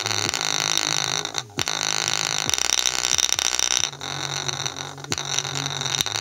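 Small JBL portable speaker playing bass notes loud, with a harsh buzzing distortion over them as a golf ball resting on its bass radiator vibrates. The bass notes step in pitch every second or so, with a few sharp clicks and two brief dropouts.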